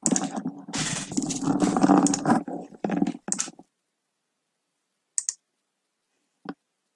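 Clatter of handling at a computer desk: dense knocking and clicking for about three and a half seconds, then two single clicks a little later.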